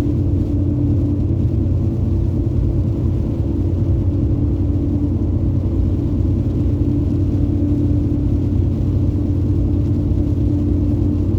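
Two-wheel-drive pickup truck heard from inside the cab as it drives on a snow-covered road: a steady, even rumble with a constant hum.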